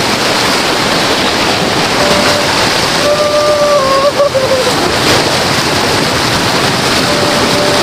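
River water rushing steadily, with a faint held tone rising over it a few times.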